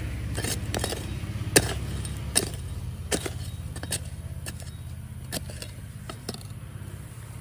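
Irregular sharp clinks, about ten of them, the loudest about one and a half seconds in, over a steady low machine hum.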